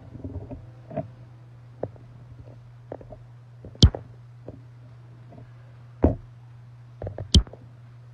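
Handling noise from a phone being moved while recording: a string of sharp knocks and bumps on the microphone, the loudest about four seconds in and more around six and seven seconds, over a steady low hum.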